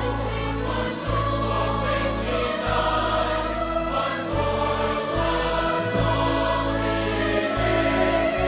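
Large mixed choir singing in full harmony with an orchestra, over held low bass notes that change every second or two.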